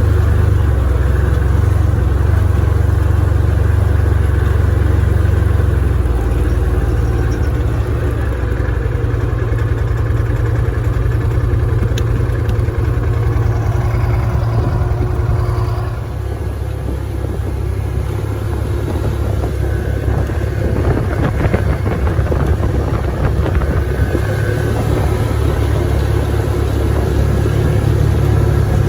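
Side-by-side UTV's engine running as it is driven, loud and steady, its note shifting a couple of times and easing slightly about halfway through.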